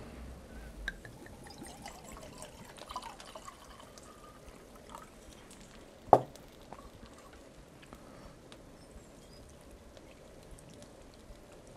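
Red wine poured from a small bottle and from a stainless steel mug over meat in a pot, a faint trickling. One sharp knock sounds about six seconds in.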